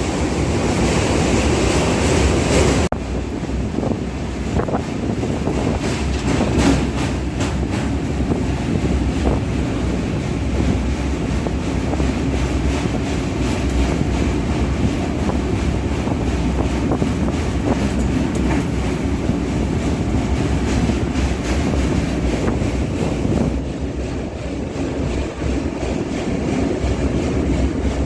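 Running noise of a moving passenger express train heard from on board: a steady rumble with wheels clicking over rail joints. The sound changes abruptly about three seconds in, losing its high hiss.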